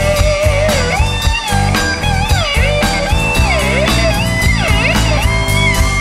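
Blues band music with an electric guitar solo, its notes bent and sliding up and down over bass and drums.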